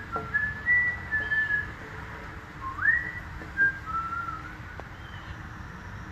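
A man whistling a slow tune through pursed lips: held notes joined by rising swoops. The whistling stops about four and a half seconds in.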